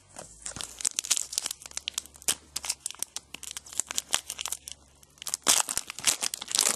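Foil wrapper of a trading-card pack crinkling and tearing as it is handled and opened, in a run of crackles that grows loudest near the end.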